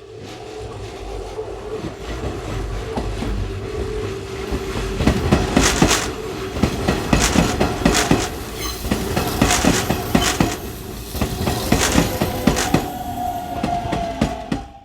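Hanshin electric train running through the station, its wheels clattering over the rail joints in a quick run of clicks through the middle, over a steady motor tone. It grows louder at first and cuts off suddenly at the end.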